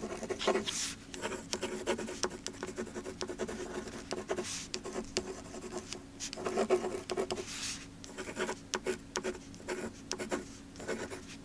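Pen or pencil writing on paper: irregular short scratching strokes mixed with longer rubbing sweeps of the tip across the sheet, in the stop-and-start rhythm of handwriting.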